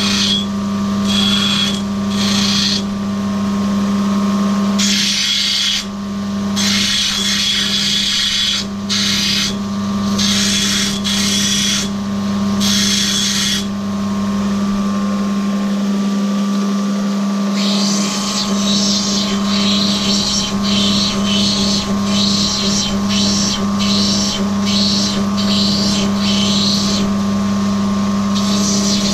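Wet lapidary grinding machine's motor running with a steady hum, while an opal is pressed against the spinning wheel again and again, each contact a harsh grinding noise lasting from half a second to a few seconds, coming more often in the second half.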